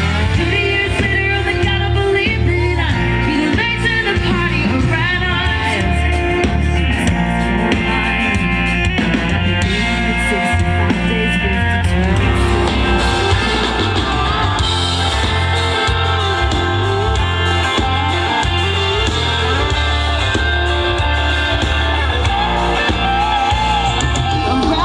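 Amplified live band playing a rock-style song through a PA, with a singer over guitar and a heavy, steady bass line.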